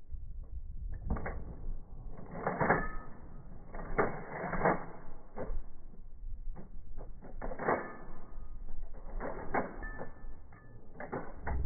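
Mosin-Nagant bolt-action rifles in 7.62x54R firing and having their bolts worked: a string of sharp shots mixed with metallic bolt clacks at uneven intervals.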